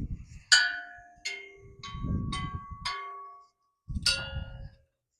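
A small metal bell ringing in about six separate strikes, each ringing on briefly at the same few pitches, over a low rumble.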